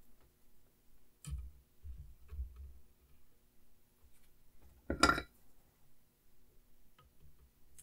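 Quiet handling sounds of a helping-hands stand and soldering iron on a workbench: a small click and a few soft knocks as an alligator clip is set onto the circuit board, then one louder short clatter about five seconds in, under a faint steady hum.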